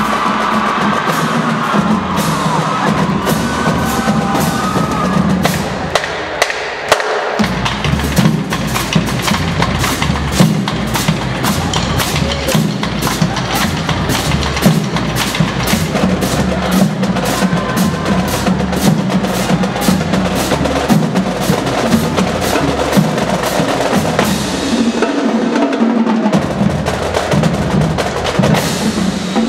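High school marching drumline playing a fast cadence: rapid snare drum strokes and rolls over pulsing bass drums. The low drums drop out briefly about six seconds in, then the cadence carries on.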